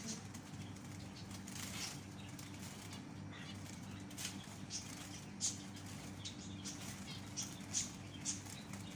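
Zebra finches' wings flapping in short quick flurries as they fly about a cage, over a steady low hum.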